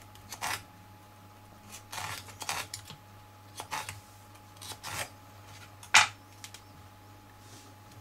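Small carving knife cutting through watermelon rind in a series of short crisp strokes, with one sharper, louder click about six seconds in.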